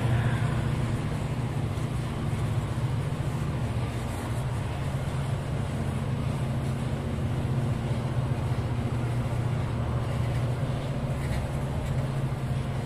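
Loaded coal hopper wagons of a freight train rolling past on the track: a steady low rumble with a low drone.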